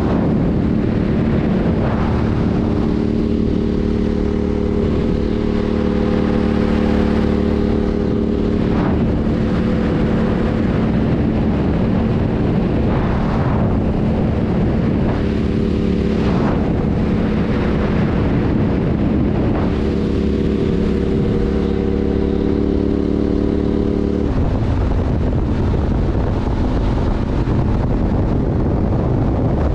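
Yamaha Tenere 700's 689 cc parallel-twin engine running steadily at highway cruising speed, with wind rushing over the microphone. About 24 seconds in, the engine note drops away, leaving mostly wind rush.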